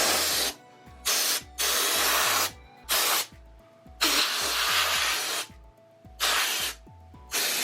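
Can of compressed air blowing dust out of a desktop computer in a series of hissing bursts, about six, the longest about a second and a half.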